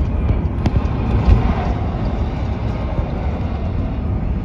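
Steady low rumble of a vehicle in motion, with a single sharp click about a second in.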